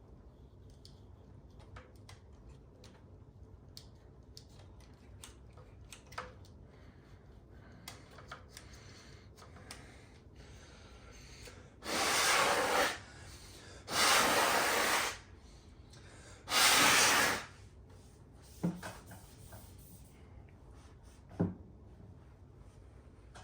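Three bursts of DeoxIT contact cleaner sprayed from an aerosol can, each about a second long, to clean the amplifier's controls. Light clicks and two sharp taps come before and after.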